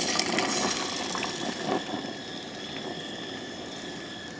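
Eggs sizzling and crackling as they are poured into hot oil in a nonstick skillet. The sizzle starts sharply and loud, then settles and slowly fades.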